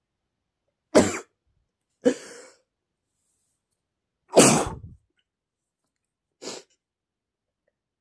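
A man with a cold sneezing four times, short and sharp, about a second, two, four and six and a half seconds in. The third sneeze is the longest and loudest, and the last is the quietest.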